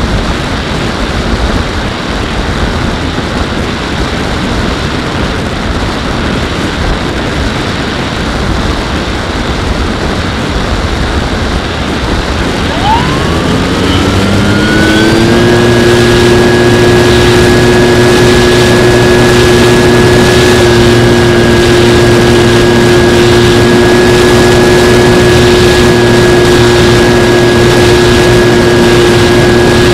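Wind rushing over the Skywalker X-8's onboard camera while it glides, then its electric pusher motor and propeller spin up about 13 seconds in with a rising whine that settles into a steady, louder drone for the rest of the flight.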